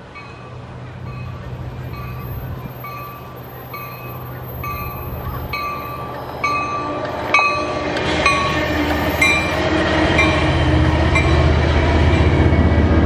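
Sound Transit Sounder commuter train approaching and passing, its bell ringing about twice a second and dropping slightly in pitch as it goes by. The rumble of the train on the rails grows louder through the second half.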